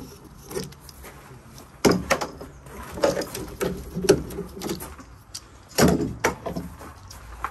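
Steel bar clamps clanking and knocking as they are slid into place and tightened by their handles, with a handful of irregular sharp metallic knocks.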